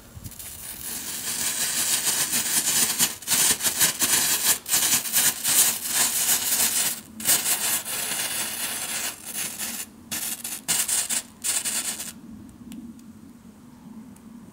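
Blinkies flash blocks, small category 1 strobe fireworks, burning with a fizzing hiss. The hiss builds up, flickers with short dropouts, and cuts off about twelve seconds in.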